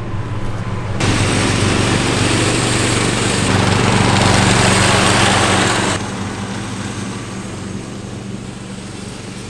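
Riding lawn mower engine running steadily. A louder rushing noise rises over it from about a second in and drops away about six seconds in.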